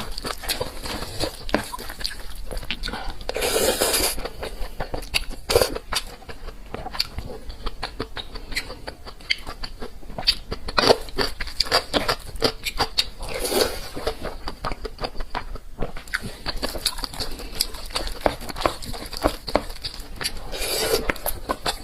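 A person eating close to the microphone: a steady run of quick wet mouth clicks and smacks from chewing, broken three times by a longer rushing sound like a slurp or a breath.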